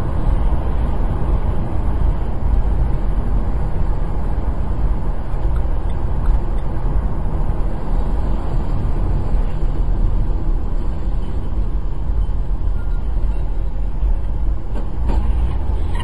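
Steady road and engine rumble of a moving car heard from inside its cabin through a dash camera's microphone.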